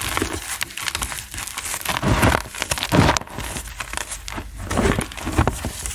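Blocks of gym chalk being crushed by hand, with a dense crispy crackle and a heavier crunch about two seconds in, another at three seconds and two more near the end.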